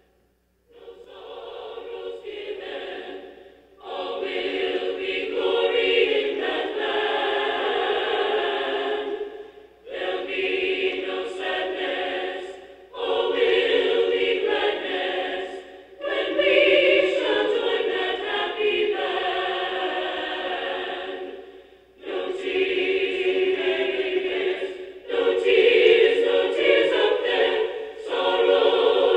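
A group of voices singing a hymn a cappella, with no instruments, in phrases separated by brief pauses; it begins softly and grows fuller a few seconds in.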